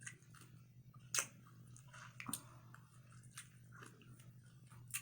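Close-up chewing and wet mouth sounds of someone eating a soft rice, egg and cheese filling, with a few sharper clicks, the loudest about a second in and again just after two seconds. A low steady hum runs underneath.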